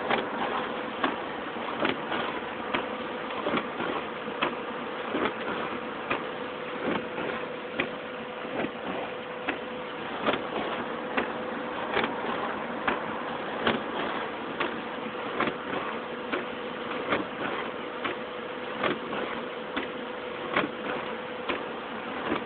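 Regular ticking, a little faster than once a second, over a steady hiss and a faint even hum.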